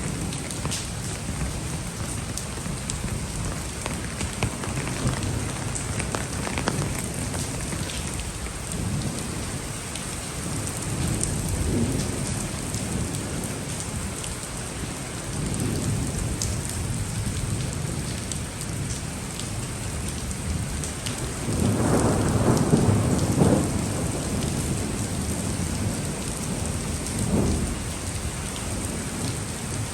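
Heavy rain pouring steadily, with several low rolls of thunder; the loudest and longest rumble comes about two-thirds of the way through and lasts a couple of seconds.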